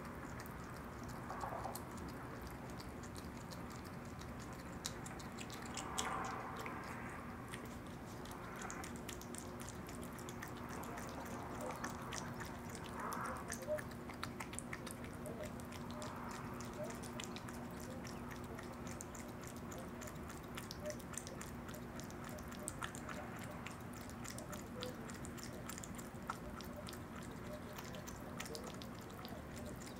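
Opossum eating yogurt: a continuous run of small wet clicks and smacks from licking and chewing, with a few louder slurps.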